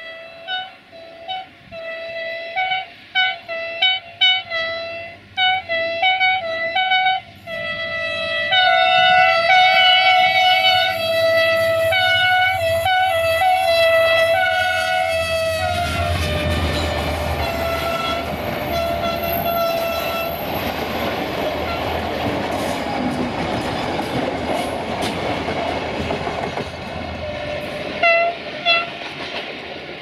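Air horn of CFR diesel locomotive 64-0989-5 sounding a long run of short toots in quick rhythmic patterns, a horn show by the driver. About sixteen seconds in, the locomotive passes close with its engine and wheels loud and the horn held for a few more seconds. The coaches then roll by with wheel clatter on the rails, and there are two more short toots near the end.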